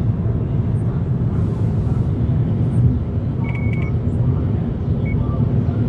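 Steady road and engine rumble of a car cruising at highway speed, heard from inside the cabin, with a few short high beeps a little past halfway and one more near the end.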